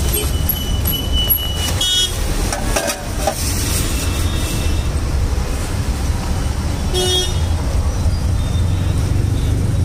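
Steady rumble of street traffic, with a few short vehicle horn honks; the clearest come about two seconds and seven seconds in.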